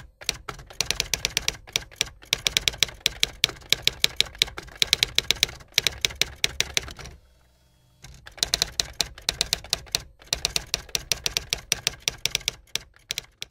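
Typewriter key clicks in a fast, even run, the sound effect for caption text being typed out letter by letter. The typing stops for just under a second about seven seconds in, then resumes.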